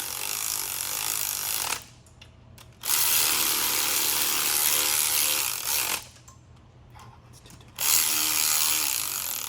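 A power tool running nuts down on Porsche 911 crankcase bolts, in three runs of two to three seconds each with short pauses between, the nuts only being brought to the bottom and not tightened.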